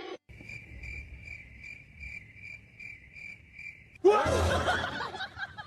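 Insect chirping, a steady pulsed trill at about three chirps a second. A few seconds in, it stops and a loud, sudden noisy burst cuts in.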